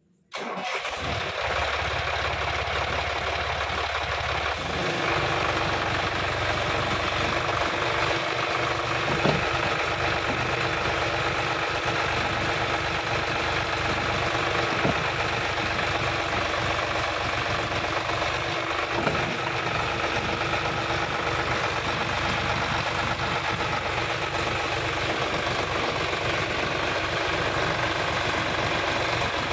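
Sonalika DI 50 RX tractor's diesel engine running steadily, coming in suddenly just after the start, with a change in its note about four and a half seconds in. The tractor is stuck and the engine is working under load to drive it free, hard enough to lift the front wheels off the ground.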